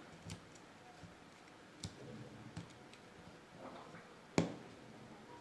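Faint, scattered small clicks and taps of parts being handled while a hair dryer motor's carbon brush is fitted into its holder, with one sharper click about four and a half seconds in.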